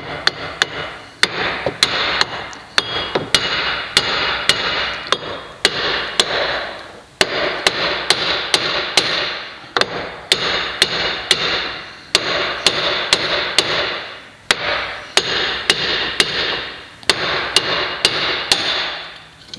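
Hammer striking the old front wheel hub assembly of a 2002 Buick LeSabre from the back side to tap it loose: a steady series of sharp metal-on-metal blows, one or two a second, each ringing on.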